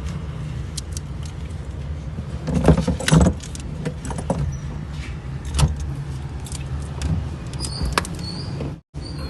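Metal clinks and knocks of hand tools and battery hardware during a car battery swap, loudest about three seconds in, over a steady low hum.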